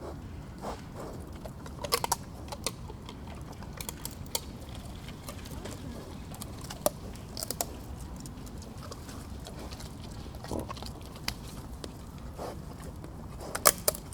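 Wild boar cracking and chewing nuts: irregular sharp cracks of shells breaking between softer chewing sounds, with the loudest cracks near the end.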